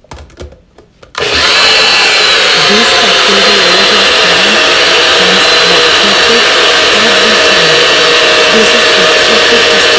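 A few light clicks as the blender cup is seated on its base, then about a second in a personal bullet-style blender's motor starts and runs steadily at full speed, blending a liquid custard mix.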